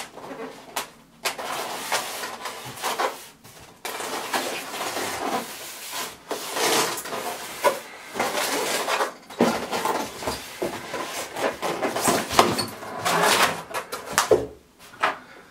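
A white styrofoam shipping box being opened by hand: the foam lid scraping and squeaking against the foam base as it is worked loose and lifted off, with knocks of handling.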